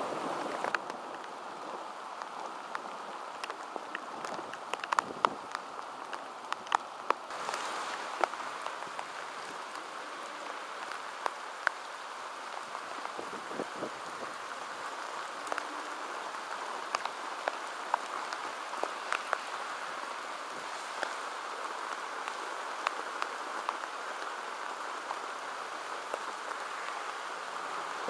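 Heavy thunderstorm downpour: a steady hiss of rain with scattered sharp taps, thickest in the first eight seconds or so.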